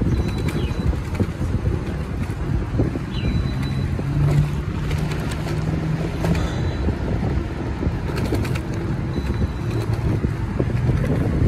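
Steady rumble of a moving vehicle and road noise, with wind buffeting the microphone. A low drone swells for a couple of seconds midway.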